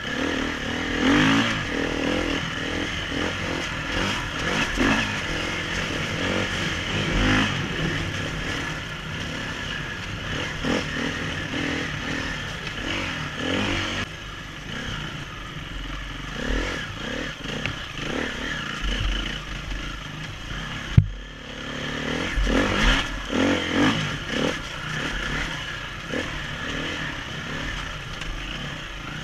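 KTM 350 four-stroke single-cylinder enduro motorcycle engine revving up and down as it is ridden hard over rough ground, with the bike's rattles and clatter throughout. One sharp knock stands out as the loudest moment, about two-thirds of the way through.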